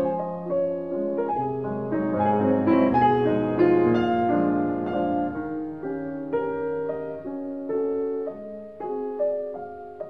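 Background piano music, notes and chords struck one after another and left to ring.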